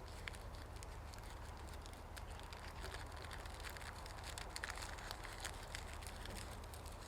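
Faint, scattered crackling and clicking of wood over a steady low rumble.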